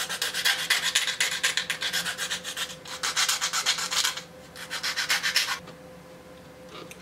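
Hand file rasping back and forth on the edge of a 3D-printed plastic front plate, about five quick strokes a second, taking down warpage so the plate will fit. The filing pauses briefly, resumes for about a second, then stops about a second and a half before the end.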